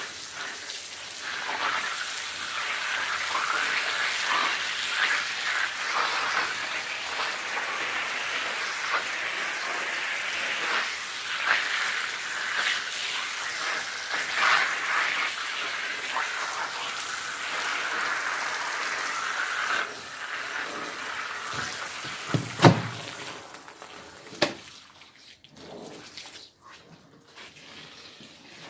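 Water spraying and splashing over a carpet being washed, a rushing hiss with streaky surges that thins out after about twenty seconds. A couple of sharp knocks follow near the end.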